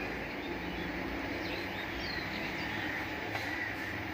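Steady low background noise, with a few faint high chirps about halfway through.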